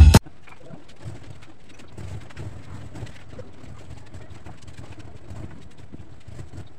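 Loud music cuts off abruptly just after the start. Then there is steady outdoor background noise, a low hum with faint scattered ticks.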